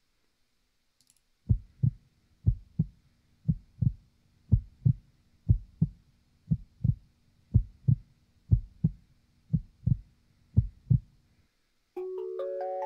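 Heartbeat sound effect opening a rap track: about ten double low thumps, roughly one pair a second, over a faint drone. The thumps stop shortly before a chime-like melody of held notes starts near the end.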